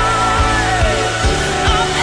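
Band music with a steady drum beat, about two to three beats a second, under long, held, wavering melody notes.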